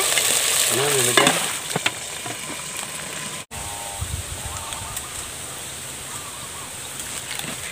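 Water poured into a hot pot of stone crabs over a wood fire, sizzling and hissing steadily. About three and a half seconds in, the sound breaks off briefly and a quieter hiss follows.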